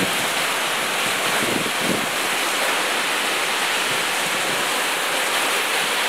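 Heavy rain pouring and strong wind of a severe thunderstorm, a steady, even rush.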